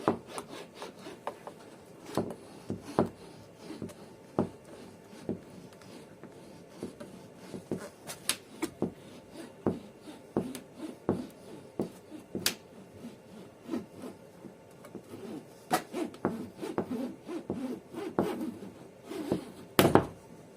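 Windscreen cut-out wire being sawn back and forth through the glass's bonding bead: irregular rasping strokes broken by sharp clicks and knocks, the loudest knock just before the end.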